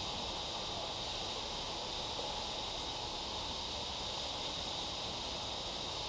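Steady hum of city street traffic at an intersection, with a faint steady high-pitched whine over it.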